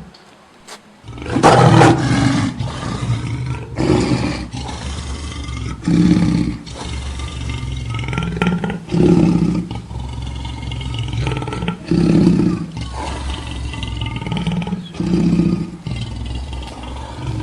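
Lion roaring: one long, loud roar followed by a series of about five shorter roars every two to three seconds.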